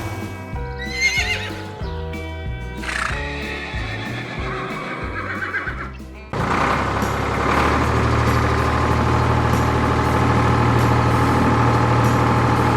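Cartoon background music with two wavering horse whinnies as sound effects in the first few seconds; from about halfway a louder, steady droning sound takes over.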